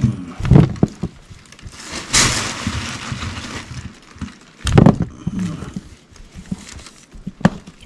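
Rummaging through bags and boxes of thrown-out food in a dumpster: rustling and handling noise with a few sharp knocks, the loudest about half a second and about five seconds in.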